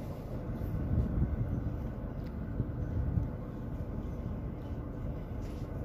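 Gusty low rumble of wind buffeting the microphone in open desert, with a faint steady hum underneath.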